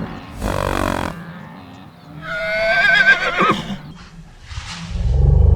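A horse whinnying: a short breathy blow, then a high, wavering whinny about two seconds in. Near the end a loud, low, steady drone starts.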